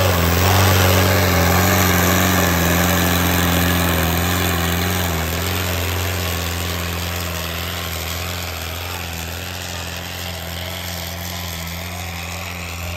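Turbocharged four-cylinder diesel engine of a modified HMT tractor running under load as it drags a weighted sled through a sand track: a steady, deep engine drone that gradually fades as the tractor pulls away.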